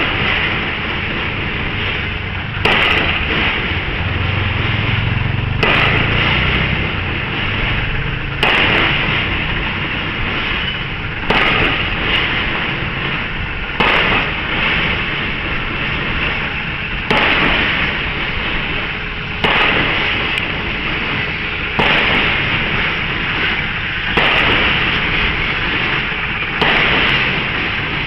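Drop-hammer pile driver striking a pile about ten times, one heavy impact every two and a half to three seconds, over continuous site noise.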